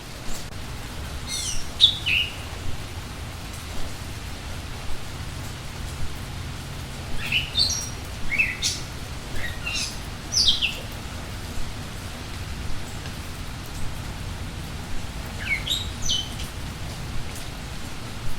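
Steady rain falling, with a bird giving quick, high calls that sweep downward in pitch, in three short bouts: near the start, in the middle and near the end.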